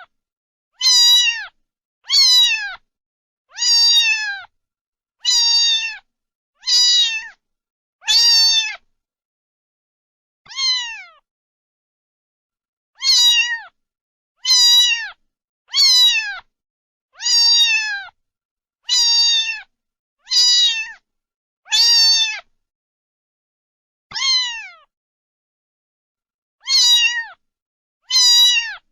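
Domestic cat meowing over and over: short meows, each falling in pitch at the end, mostly about one every second and a half, with a few longer pauses, and dead silence between them.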